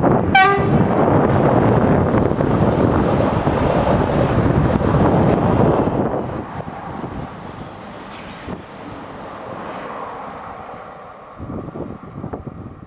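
Train passing through a station: a loud rush of noise with wind on the microphone for about six seconds, then fading away. A very short high tone sounds right at the start.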